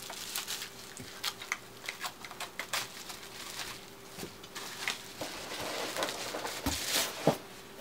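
Plastic packaging being cut with scissors, then crinkled and pulled off by hand: a dense, irregular run of crackles and rustles.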